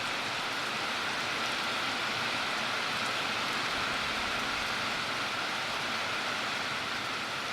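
Torrential rain shower pouring down, a steady even hiss.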